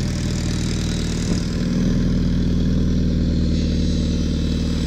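Suzuki Hayabusa's inline-four engine idling steadily through its stock exhaust.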